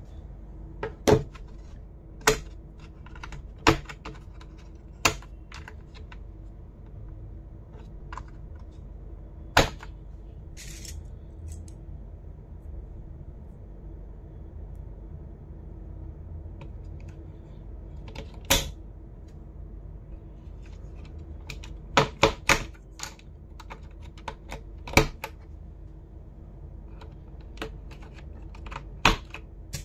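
Sharp plastic clicks and clacks from a computer keyboard, coming singly at irregular intervals with a quick run of three about two-thirds of the way through, over a steady low hum.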